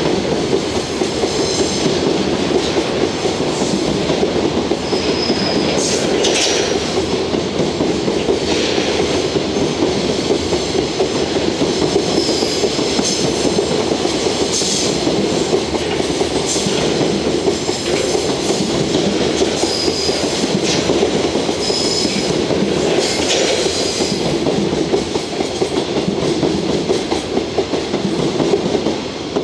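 Freight wagons loaded with long steel rails rolling through railway turnouts: a steady rumble of wheels over the points, broken by repeated metallic clangs and ringing as the ends of the carried rails knock together at the switches, with brief high wheel squeals. It fades near the end as the last wagon passes.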